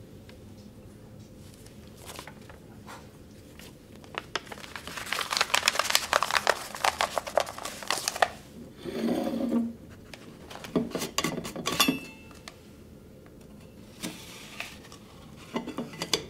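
Paper crinkling as a note is rolled up and pushed into a stainless-steel capsule, followed by short scrapes and clicks of the metal capsule being handled, with a brief metallic ring about twelve seconds in.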